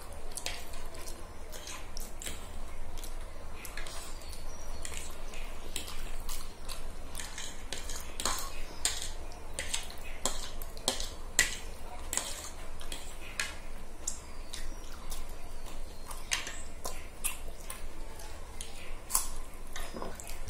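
Forks clinking and scraping on plates as two people eat noodles, in irregular sharp clicks.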